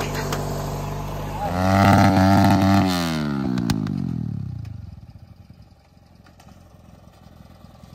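Small engine running steadily, then a louder small engine revs hard about a second and a half in. Its pitch then slides down and it dies away by about five seconds in.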